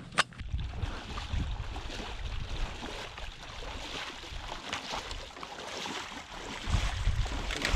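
Wind rumbling on the microphone over water sloshing and splashing as a hunter wades through shallow marsh water skimmed with thin ice. A sharp click sounds just after the start.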